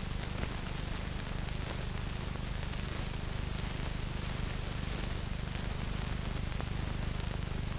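Steady hiss and low hum of an old film soundtrack's background noise, with a few faint ticks and no other sound.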